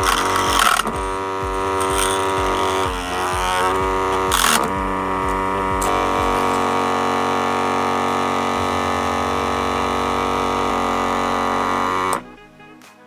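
Small 12 V DC motor spinning a match-cutting saw blade with a steady whine, with short noisy bursts as matches are fed into the blade near the start and about four and a half seconds in. The motor is switched off about twelve seconds in and the whine stops abruptly.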